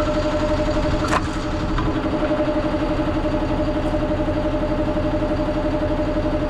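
DAF combination gully tanker's engine running steadily with a fast, even pulse and a steady whine over it. A single sharp knock comes about a second in.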